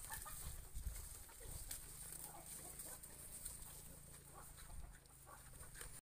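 Pigs, a sow and her piglets, rooting and chewing among sugarcane leaves: faint rustling and crunching with many small clicks.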